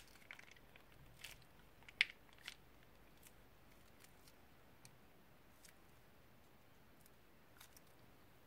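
A few faint crinkles and small clicks from a plastic piping bag being squeezed as slime is piped out, all within the first couple of seconds, the loudest about two seconds in.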